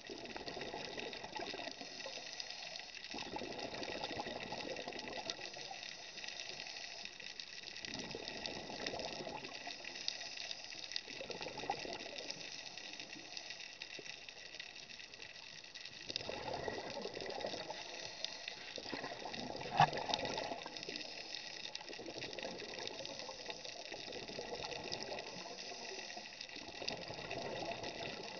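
Underwater scuba diver's exhaled breath bubbling out of the regulator in rushing bursts a few seconds long, with quieter gaps between breaths, over a steady high hiss from the camera housing. One sharp click comes about twenty seconds in.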